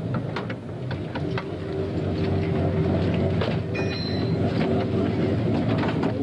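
An engine running steadily with repeated metallic clicks and clanks of tools as mechanics service a rally car. A brief high squeal comes just before four seconds in.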